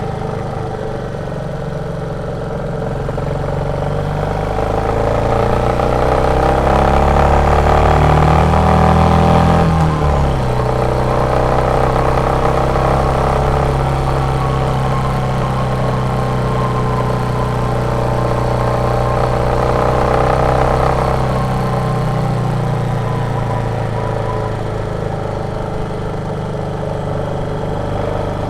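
Royal Enfield Meteor 350's single-cylinder engine under way. Its revs climb for several seconds, drop sharply at an upshift about ten seconds in, then hold steady before easing off a little after twenty seconds.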